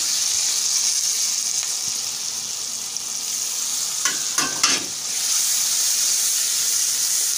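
Ghee and spice masala sizzling in a non-stick wok with freshly added tomatoes, green chillies and onions. About four seconds in, a spatula scrapes against the pan a few times and the mixture is stirred, and the sizzle grows louder.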